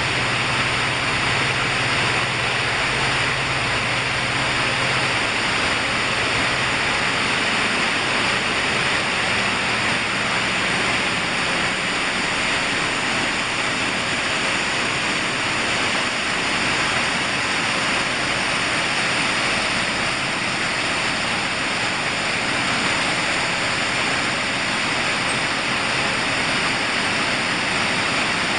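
Pumpkin seed cleaning and shelling line running: a steady rushing hiss of masses of seeds moving through the machines. A low motor hum sits under it for the first few seconds.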